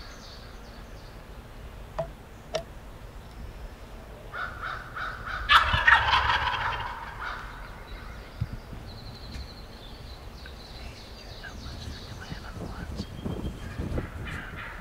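Wild turkey tom gobbling once, a loud rattling gobble about five seconds in. Fainter bird calls follow later.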